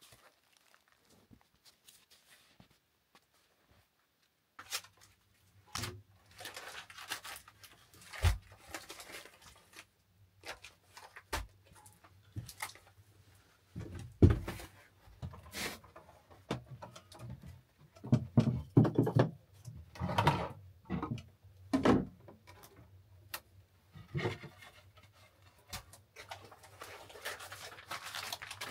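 After a few seconds of near quiet, irregular rustling and crinkling of paper packets handled in gloved hands, with scattered knocks and thumps and footsteps on wooden floorboards. The loudest thump comes about halfway through. The small log room gives the sounds a close, boxy ring.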